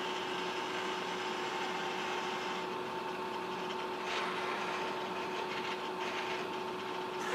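Steady mechanical hum and whir from a Baxter industrial robot, with two constant tones, as its arm slowly lowers its gripper.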